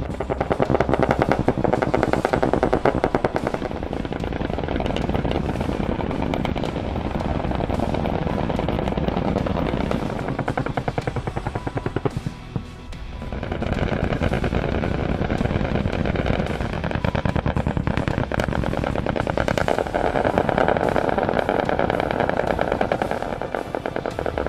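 Rapid automatic cannon fire from AH-1Z Viper attack helicopters' 20 mm M197 rotary cannons, in long bursts with a short break about halfway through. Music plays underneath.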